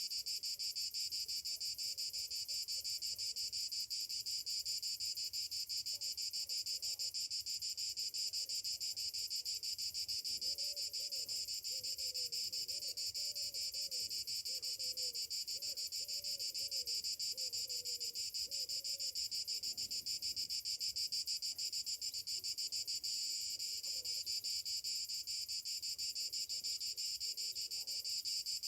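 Chorus of summer cicadas buzzing continuously: a steady, high, rapidly pulsing drone that neither rises nor falls. A faint series of short low notes sits underneath for several seconds in the middle.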